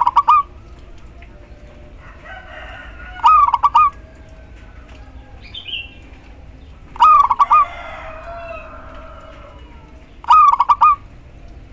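Zebra dove calling: four short trilled coos about 3.5 seconds apart, each about half a second long, a female calling to a male.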